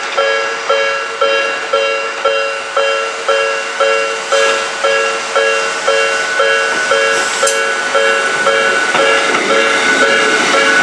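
Japanese level-crossing warning bell ringing, a two-note electronic ding repeating about twice a second. From about nine seconds in, the running noise of a Hakone Tozan Railway train rises beneath it as the train comes through the crossing.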